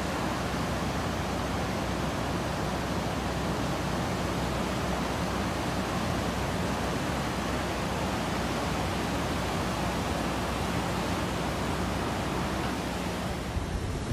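Heavy water rushing steadily, an even unbroken noise with no distinct splashes or events.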